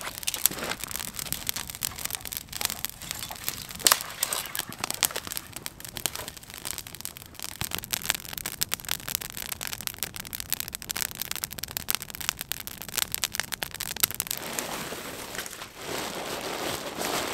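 Campfire of dry branches and brush crackling, with irregular sharp pops throughout. In the last few seconds a rustle of tent fabric being crumpled and handled joins in.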